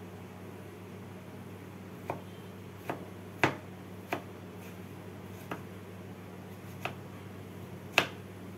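Kitchen knife chopping snake gourd on a wooden cutting board: about seven separate knocks of the blade through the gourd onto the board, unevenly spaced, the loudest near the end, over a steady low hum.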